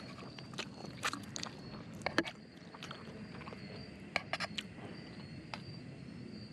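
Chopsticks clicking and scraping against an aluminium mess tin of noodles in short scattered clusters, over a steady high drone of crickets.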